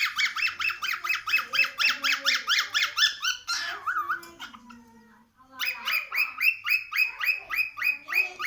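Cockatiel giving rapid, repeated chirping calls, about six or seven a second. The calls pause briefly about halfway through, then start again.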